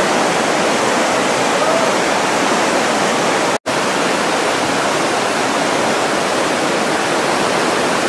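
River rapids rushing below, a steady even whitewater roar. The sound cuts out for an instant a little before halfway.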